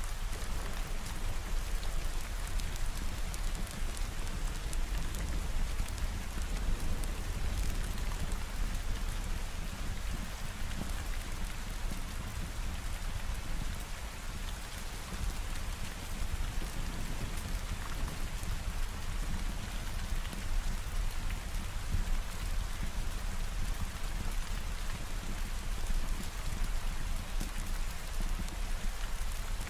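Steady rain falling, an even continuous patter with a constant low rumble underneath.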